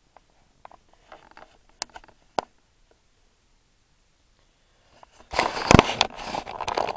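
Handheld camera handling noise: faint clicks and taps, then about two seconds of loud rustling and rubbing against the microphone with one heavy thump.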